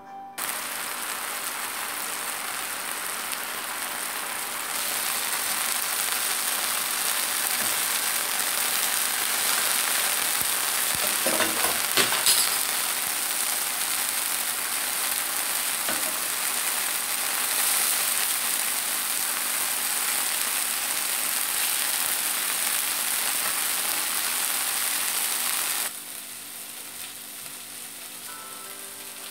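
Small minced-beef patties sizzling as they fry in a little olive oil in a non-stick frying pan, a steady hiss. A few clinks of a metal turner against the pan come around the middle, and the sizzle drops away suddenly near the end.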